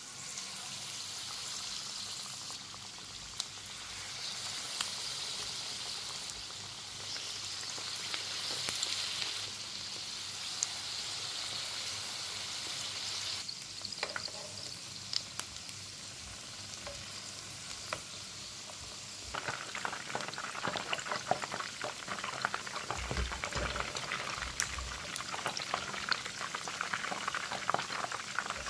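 Food sizzling in a frying pan, with a steady hiss and an occasional sharp click. About two-thirds of the way through it turns to a denser, crackling bubbling.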